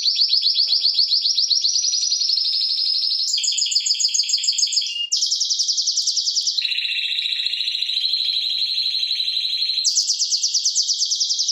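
Timbrado Español canary of the Galindo line singing without a break: a chain of rapid trilled phrases, each held for one to three seconds before switching to a new pitch and texture, with a lower, smoother rolling phrase in the middle. It is a tutor song for teaching young canaries.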